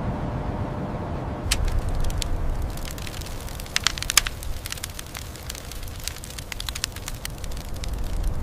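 Low wind-like rumble. From about a second and a half in, irregular sharp crackling clicks take over, with a few louder cracks around four seconds.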